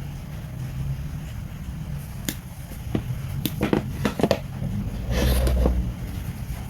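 Wire stripper pliers and cable being handled: scattered sharp clicks and knocks, several in quick succession near the middle, then a longer rustle with a low bump about five seconds in.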